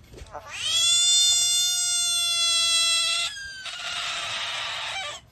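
American bullfrog giving its distress scream: one long, steady, cat-like wail lasting nearly three seconds, followed by a shorter, breathy, hissing cry.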